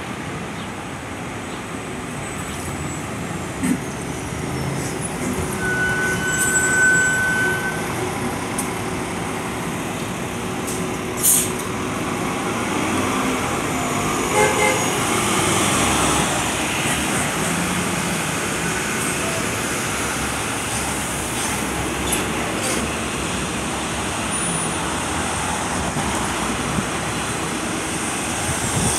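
2016 Nova Bus LFS city transit bus pulling away and driving past, its engine and tyres over steady street traffic noise, swelling about halfway through as it goes by. A brief high tone sounds about six seconds in, and a sharp knock about eleven seconds in.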